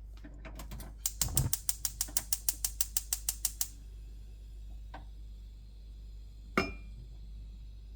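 A gas stove's igniter clicking rapidly, about seven clicks a second for some three seconds. A single sharp clink with a short ring follows a few seconds later.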